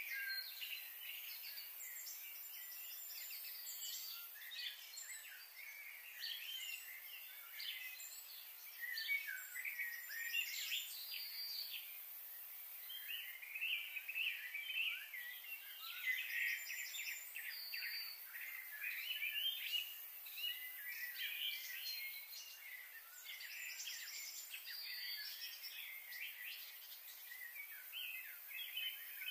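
Small birds chirping and calling, with many short, quick chirps and whistles overlapping throughout over a faint steady hiss.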